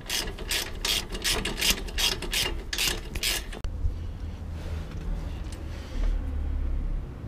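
Ratchet wrench clicking in quick back-and-forth strokes, about four a second, as it tightens the brake caliper bolts. It stops about three and a half seconds in, leaving a low steady rumble.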